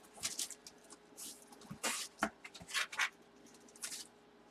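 Short, scattered rustles and scrapes of packaging being handled, about eight in a few seconds, over a faint steady hum.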